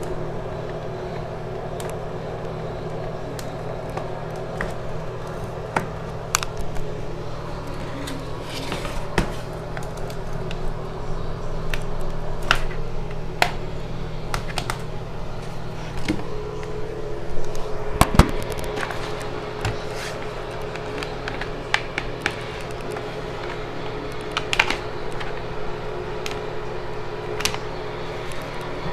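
Plastic bottom case of an Asus VivoBook Q301L laptop being pried open: scattered clicks and snaps as the case clips let go, over a steady hum.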